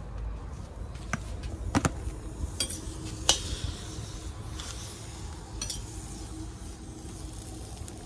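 A metal utensil clinking and scraping against a cooking pot, about five sharp separate clinks, as pieces of pork fat are put in and stirred to render, with a light sizzle as the fat starts to fry.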